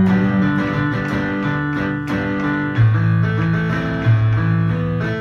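Instrumental accompaniment led by a strummed guitar, with deep bass notes that change about three seconds in and again about a second later, playing in a break between the sung lines of a worship song.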